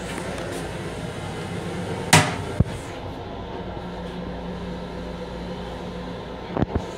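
Plastic toilet lid lifted and knocking back against the bowl's surround about two seconds in, with a sharp click just after and two small knocks near the end, over the steady hum of the train car.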